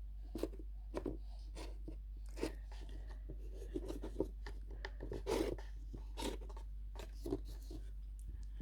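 Handling noise: irregular soft crackles and clicks, unevenly spaced, as items and packaging are handled.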